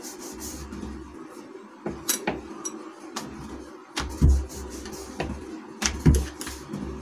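Wooden rolling pin rolling out a thin round of maida dough on a countertop: a rubbing roll back and forth with light knocks as the pin is set down and turned, the heaviest dull thuds about four and six seconds in.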